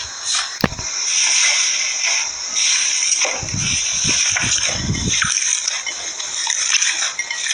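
Slime being squished and poked: wet squelching and crackling, with a few soft low thuds about halfway through.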